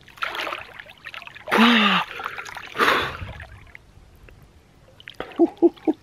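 A person dunking under cold tarn water: splashing and water pouring off as he comes up, with a falling gasp. A few short, sharp breaths follow near the end as he reacts to the cold.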